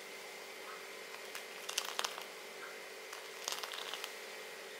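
Steel ladle stirring boiling milk and vermicelli in an aluminium saucepan: two short bursts of clinking and splashing about two seconds apart, over a faint steady hiss.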